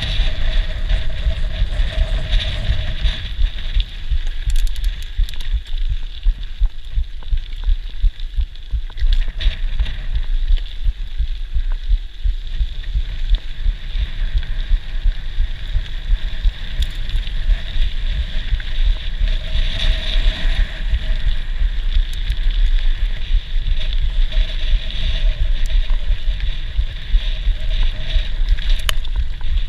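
Mountain bike rolling fast over a gravel track: steady wind rumble on the microphone, with tyre crunch and a running rattle of small clicks from the bike over the stones.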